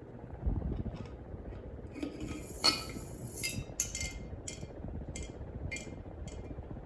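Glass light globe clinking and ringing against the ceiling fan's metal light fitter as it is put on, in a series of short sharp clinks about every half second, with the fan's low hum underneath.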